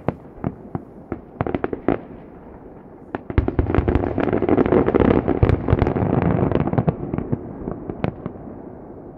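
Aerial firework shells bursting, heard from about a kilometre away: a string of separate bangs, then from about three seconds in a dense rolling barrage of many bursts at once, the show's closing salvo, which fades away near the end.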